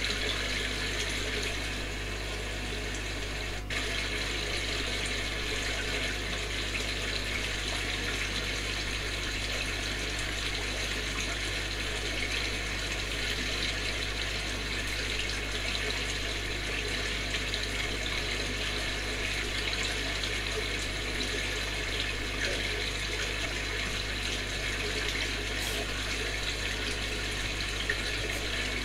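Small stream of water spilling from a model mill's sluice over a turning waterwheel and splashing into the pond below, a steady splashing.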